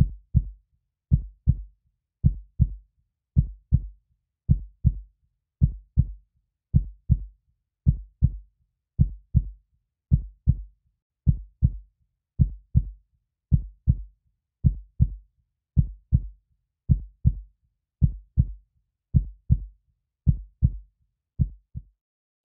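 Heartbeat sound effect: a steady lub-dub of paired low thumps, about one heartbeat a second.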